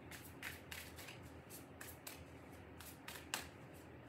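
Tarot cards being shuffled by hand: a faint, irregular run of short crisp flicks, about three a second, with one sharper snap a little over three seconds in.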